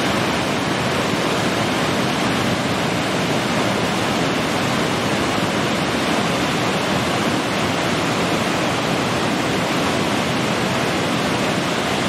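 Multi-tiered waterfall cascading over rock ledges: a steady, even rush of falling water.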